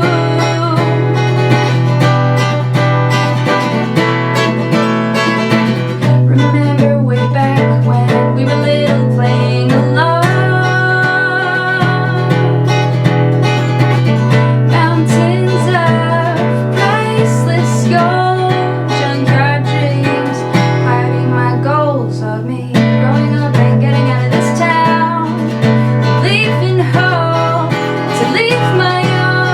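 A woman singing with strummed acoustic guitar accompaniment.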